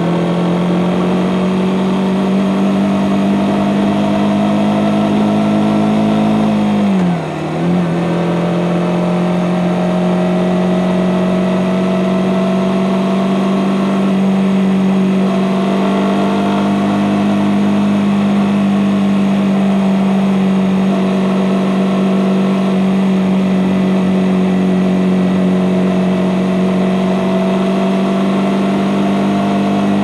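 Suzuki GSX-S150's single-cylinder engine running through its stock exhaust while riding, the pitch climbing slowly as it gathers speed. About seven seconds in there is a quick gear change: the pitch and level dip sharply, then the engine pulls and climbs again.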